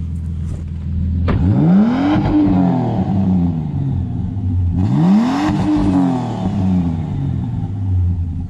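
Turbocharged Ford Barra straight-six idling, then blipped twice, the pitch rising and falling back to idle over about two seconds each time. The exhaust runs through a hollowed-out catalytic converter.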